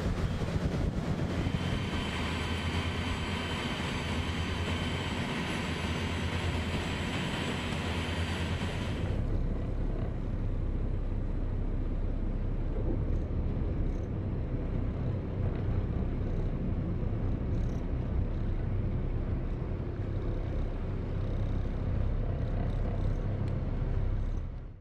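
Steady engine drone mixed with outdoor noise, with several thin high whining tones over it. About nine seconds in, the sound changes abruptly to a lower steady rumble and hum, which cuts off sharply at the end.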